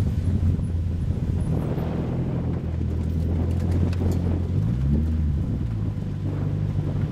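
Nissan S13 Silvia's engine at low revs as the car rolls slowly, heard from inside the car: a steady low drone, with one brief rise and fall in revs about two-thirds of the way through.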